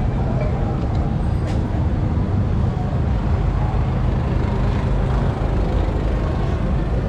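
Steady city-street din: a low rumble of traffic with the voices of a crowd of passers-by mixed in.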